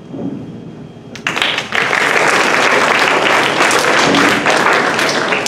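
Audience applause that breaks out about a second in and then holds steady and loud.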